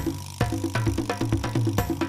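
Upbeat intro music with a fast, even percussive beat over pitched tones. The beat drops out for a moment at the start and comes back about half a second in.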